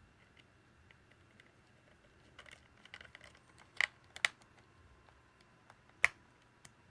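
Small clicks and taps of a screwdriver and plastic parts as a small screw is driven into a wireless charging stand's plastic housing, with three sharper clicks: two close together near the middle and one about two seconds later.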